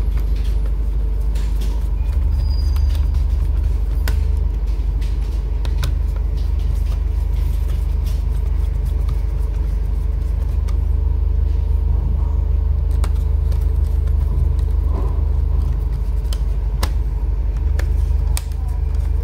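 Scattered small clicks and taps of a screwdriver and laptop parts as a drive is fastened into the laptop, over a steady low rumble.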